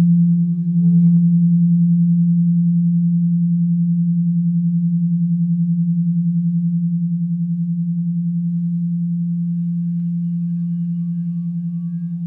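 Frosted crystal singing bowls struck with mallets: one deep tone rings on and slowly fades with an even, slow waver, renewed by another strike about a second in. Faint higher bowl tones come in near the end.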